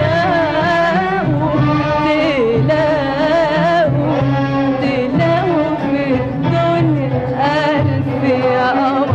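A woman singing an Arabic classical song in a melismatic style, with an instrumental ensemble and a steady low rhythm under her voice.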